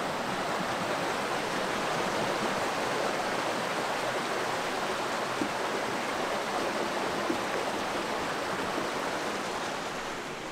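Steady rushing of running water from a stream or small fall, getting quieter near the end.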